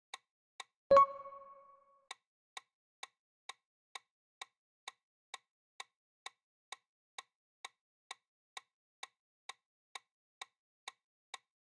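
Quiz countdown-timer sound effect: a steady ticking at a little over two ticks a second, with one bright electronic chime about a second in that rings and fades, marking the change to the next question.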